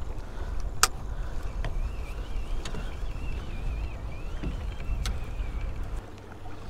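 Low wind and water rumble on a kayak at sea, with a sharp click about a second in and another about five seconds in. A faint wavering whine runs through the middle. The rumble drops away near the end.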